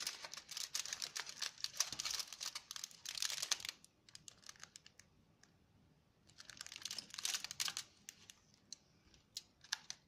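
Crinkling and rustling of a chocolate bar's foil and paper wrapper being handled, in two bursts: the first lasting nearly four seconds, the second starting about six seconds in and lasting about two. A few small sharp clicks fall between and near the end.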